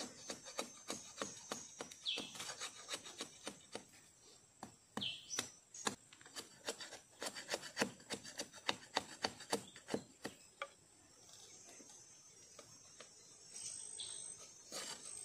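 Knife blade shaving and notching a thin wooden stick: a quick run of short scraping cuts and clicks, easing off for a moment about two thirds of the way through, then resuming. A few short high chirps sound in the background.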